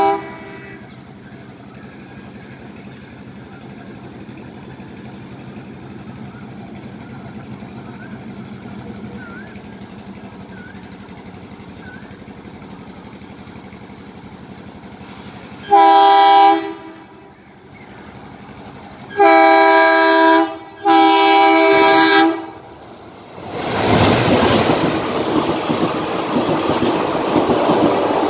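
Indian Railways express train approaching and passing through a station. After a long quiet stretch with a few faint bird chirps, the locomotive's horn sounds once, briefly, about halfway through, then twice more in longer blasts a few seconds later. Near the end the train runs through at speed, the coaches loud and clattering over the rails.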